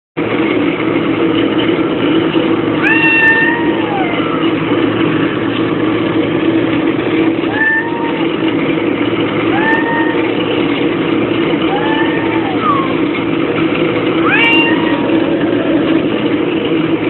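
A cat meowing five times, each meow a short call that rises and falls, spaced two to four seconds apart. Under it runs a loud, steady low hum.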